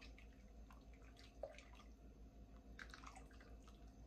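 Faint wet squishing, soft splashes and light clicks of a spoon stirring thick gumbo broth in a pot.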